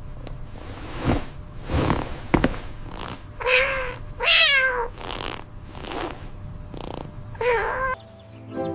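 Cat purring with a low rumble, broken by a few meows, the longest a wavering meow about four seconds in.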